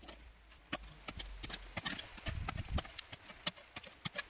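Spade digging into stony soil: repeated sharp clicks and scrapes of the blade, with a heavier thud about two and a half seconds in.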